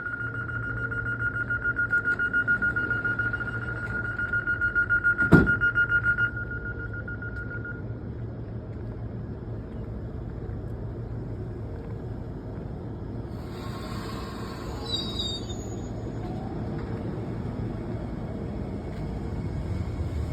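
Regio2N electric train departing: its door-closing warning beeps rapidly for about six seconds, with a sharp knock just over five seconds in as the doors shut, then the train's steady low running hum takes over as it pulls away, with a brief high squeal partway through.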